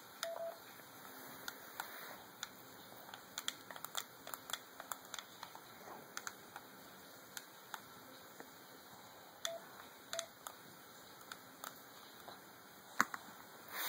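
Faint, irregular clicks and taps of phone buttons being pressed, with a few short beeps near the start and twice about ten seconds in.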